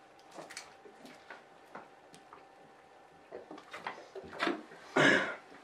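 People chugging Coke from plastic bottles: faint, scattered gulps and small clicks and knocks of the bottles, then a short, loud, breathy burst from one of the drinkers near the end.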